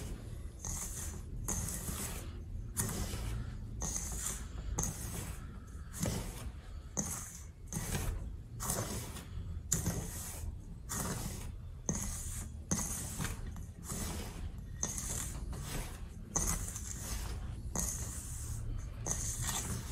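Dry semolina, sugar and baking soda being mixed by hand in a stainless steel bowl: fingers sweeping through the grains and scraping the metal in repeated rasping strokes, a little over one a second.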